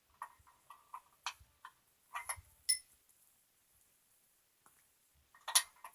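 Small loose metal hardware from a parts bag clicking and clinking as it is handled: a run of light clicks, a short ringing clink about two and a half seconds in, and another cluster of clicks near the end.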